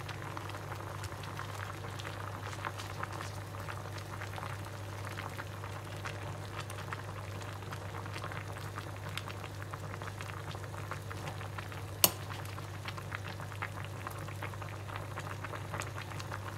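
Vegetable broth at a rolling boil in a stainless pot on a gas stove: constant bubbling and popping over a low steady hum, as taro leaves are pressed down into it. A single sharp knock about twelve seconds in.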